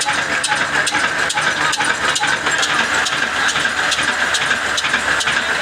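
Slow-speed 22 HP diesel engine rated at 300 RPM, running steadily with an even, rhythmic knock of about two to three beats a second over a continuous mechanical clatter.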